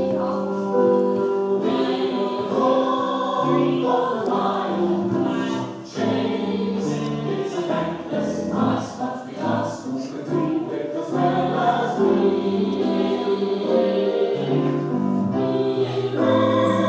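A group of voices singing a song together in held notes, with a short break about six seconds in.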